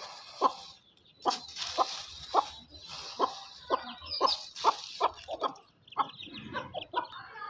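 Hen clucking in short, sharp notes, about two a second, with chicks peeping in thin high cheeps from about four seconds in.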